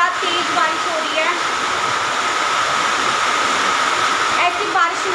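Heavy rain pouring down steadily onto a flooded flat rooftop, a loud, even hiss.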